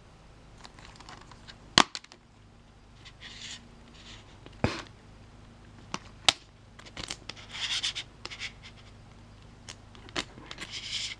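A plastic DVD case being opened and handled: several sharp snaps from the case and its hinged inner disc tray, between stretches of plastic rustling and scraping.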